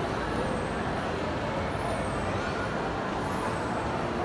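Steady indoor ambience of a crowded mall hall, a dense, even hubbub with no distinct events.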